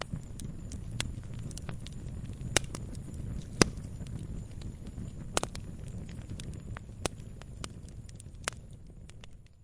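Campfire burning: a steady low rumble of flames with sharp crackles and pops from the wood, two louder pops about two and a half and three and a half seconds in, the sound starting to fade out at the very end.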